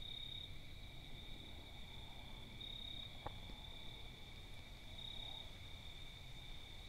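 Insects trilling steadily and faintly, swelling a little about every two and a half seconds, over a low rumble, with one small click about three seconds in.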